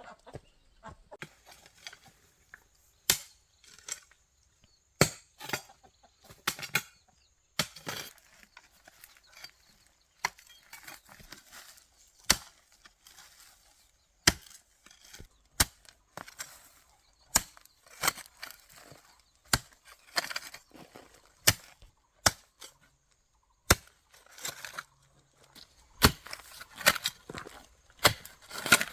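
Repeated sharp knocks of a tool striking wood, irregular and about one a second, coming faster near the end.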